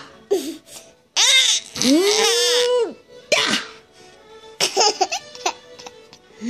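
A person sneezing and a little boy laughing in several short bursts.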